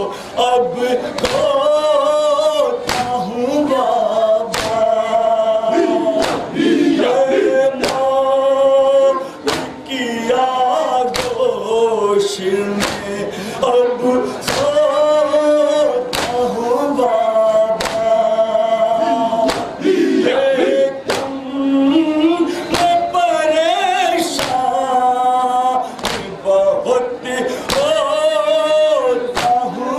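Men chanting a nauha, a Shia lament for Muharram, together in long held sung notes, over a steady beat of sharp strikes of hands on chests (matam).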